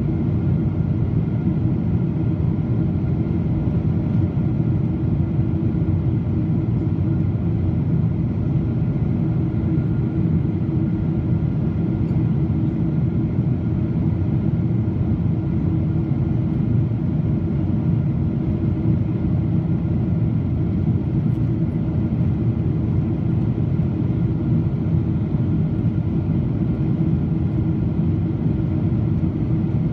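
Steady cabin noise inside a Boeing 777-200 in flight: the drone of its turbofan engines and rushing airflow, with faint steady tones running through it.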